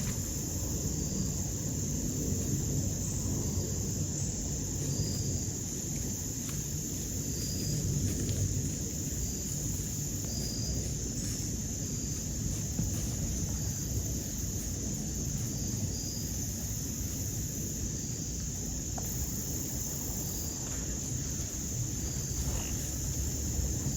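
Steady chorus of crickets and other insects: an even high trill with short chirps repeating every second or two, over a low rumbling background noise.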